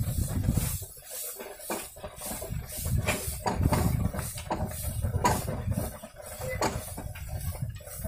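Bullock cart rolling along a dirt lane: a low, uneven rumble from the wheels with irregular knocks and clinks.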